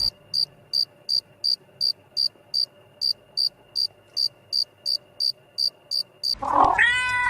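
Insect chirping steadily, short high chirps about three a second. Near the end a cat meows once, louder.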